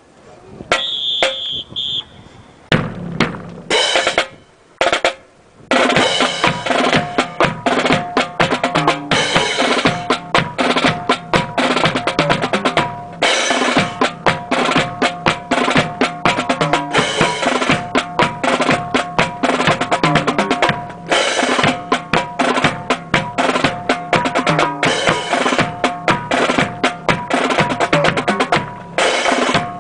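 Marching snare and bass drums playing a fast, continuous drum cadence for a drill formation. It starts a few seconds in after a few separate strikes and runs on steadily.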